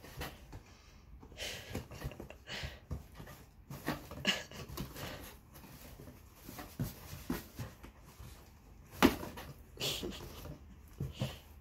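Irregular scraping, rustling and knocks as a kitten bats at a wand toy from inside a cardboard box, paws and toy striking the cardboard, with one sharper knock about nine seconds in.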